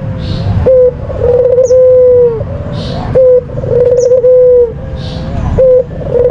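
White (albino) puter dove cooing repeatedly, about three phrases: each a short coo followed by a longer, wavering coo that ends on a held note.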